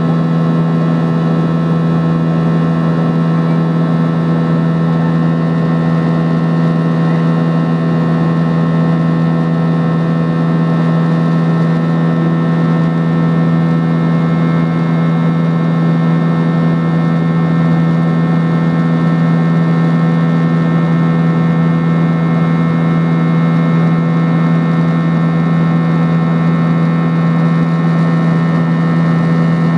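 Cabin noise of a Boeing 737-800 in flight, heard from a window seat: the CFM56 turbofan engines and the rushing airflow give a loud, steady drone with a strong low hum and several steady higher tones, unchanging throughout.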